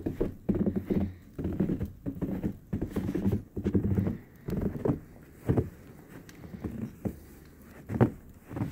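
Footsteps in snow on a snow-covered wooden deck: a steady walking pace of about two steps a second for the first half, then a few single, slower steps.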